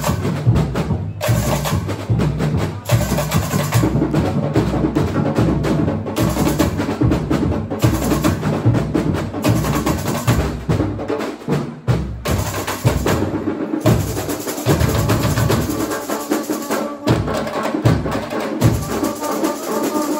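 A samba school bateria playing live: snare drums rattling over deep bass drums in a dense, driving samba rhythm. In the second half the deep bass drums break off for moments several times while the snares carry on.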